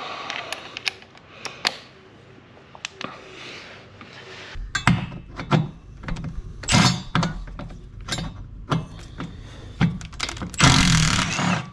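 Cordless driver running in short bursts, spinning out the already-loosened bolts of a jet ski's intake grate, with one longer, louder run near the end. Scattered clicks and knocks from handling the tool come before the first burst.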